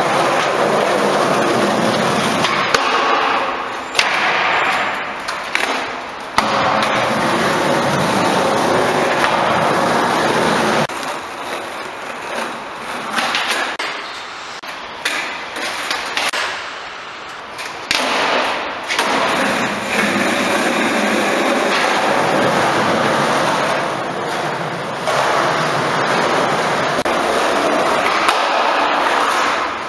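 Skateboard wheels rolling over smooth concrete, a steady rolling noise broken by sharp clacks and knocks as the board is popped, landed and slid along a concrete ledge. It goes quieter for several seconds in the middle, with scattered knocks.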